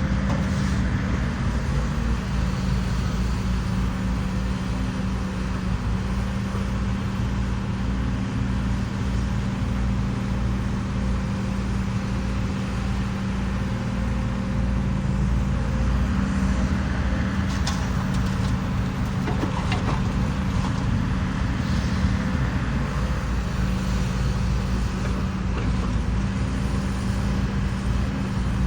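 Heavy diesel engine of a Hidromek excavator running steadily under work, with a few faint knocks partway through.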